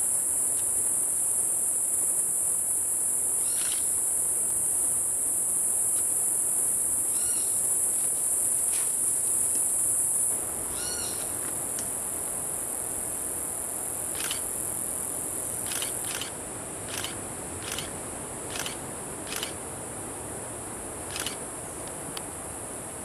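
Chorus of tropical rainforest insects: a loud, steady, high-pitched drone that drops in level about ten seconds in and again about sixteen seconds in. Brief calls come three times in the first half, and a run of short sharp chirps comes near the end.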